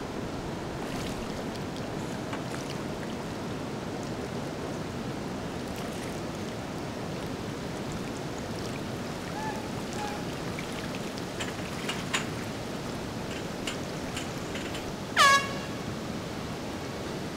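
Steady rush of water from the falls at the weir, with one short, loud air-horn blast about fifteen seconds in, its pitch dropping slightly as it starts. The blast is sounded to scare bears away.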